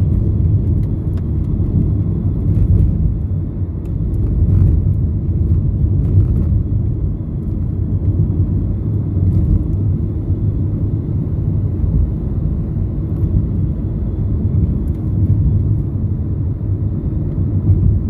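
Car driving on a paved road, heard from inside the cabin: a steady low rumble of engine and tyres.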